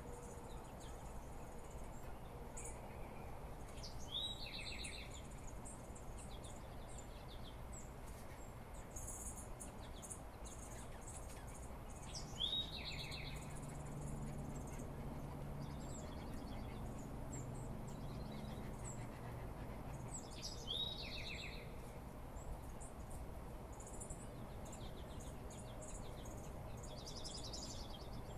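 Dawn chorus of songbirds: one bird repeats a short song three times, about eight seconds apart, each a sharp rising note followed by a quick trill, while other birds give many brief high chips throughout.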